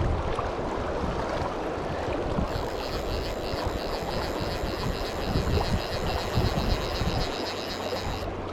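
Fast, high river current rushing, with low wind rumble on the microphone. From about two and a half seconds in, a faint high-pitched ticking, about four a second, runs until just before the end.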